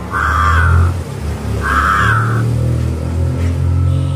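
A crow cawing twice, two drawn-out caws about a second apart, over a low steady rumble.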